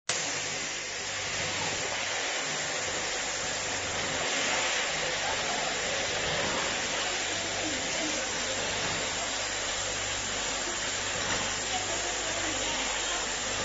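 Steady running noise of a rotary bottle filling and capping line, its turntable feeder and conveyor moving small plastic bottles: an even hiss over a low hum.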